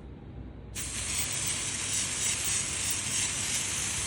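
Aerosol can of smoke-detector test spray hissing in one steady, continuous spray that starts suddenly about a second in.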